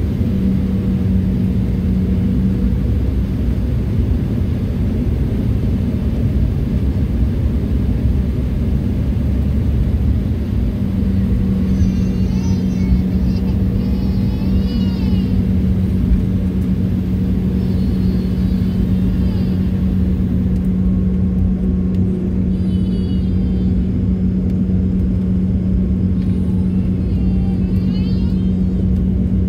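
Inside the cabin of a taxiing jet airliner: a steady, loud rumble of the engines and rolling gear, with a steady low hum running under it.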